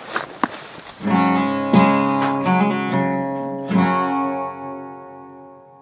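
Outro music of strummed acoustic guitar chords, starting about a second in with a few strums that ring out and fade away.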